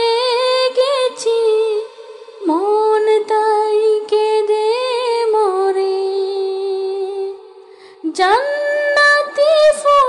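A woman singing a Bangla devotional gazal, holding long notes with vibrato and breaking briefly twice, about two seconds in and again about seven and a half seconds in.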